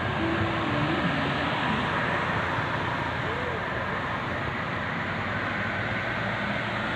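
Steady road traffic noise: the engines and tyres of passing vehicles, even in level throughout.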